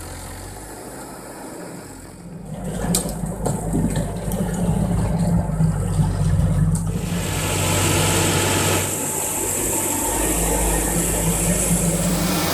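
Heavy machine engine running steadily. It grows louder about two seconds in, and a rushing hiss joins it about seven seconds in.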